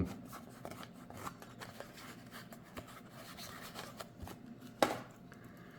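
Hands handling foam packaging and a small box: soft rustling and small clicks, with one sharper click a little before the end.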